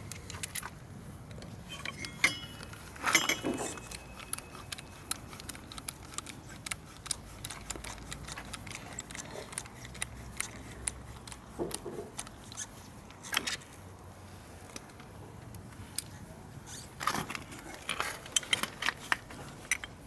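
Small metal hand tools clicking and clinking in scattered, irregular taps while working on a motorcycle's front brake caliper: a ratchet with a hex bit turning the pad retaining pin, and the brake pads being handled and pulled out.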